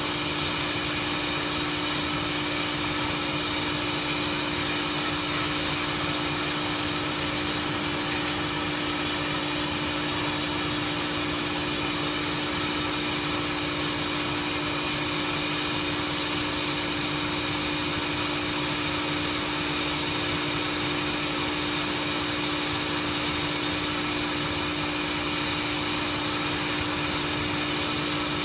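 Automatic submerged-arc light-pole welding machine running: a steady machine hum, with one strong constant tone over an even hiss, and no knocks or changes.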